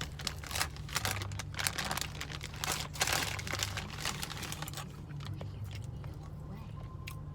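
Close-up crunching and crackling of fried green tomato flavoured Lay's potato chips being bitten and chewed, dense for the first three seconds and then thinning out, over a low steady hum.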